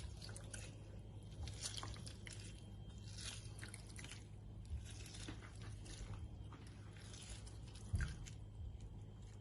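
Food being handled and prepared for a salad: scattered small crunches, squishes and clicks, with one louder knock about eight seconds in.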